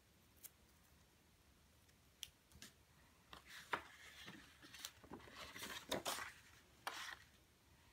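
Faint handling of stiff cardstock and a roll of double-sided tape: a few short crackles and rustles as the paper is flexed and turned and tape is pulled off the roll.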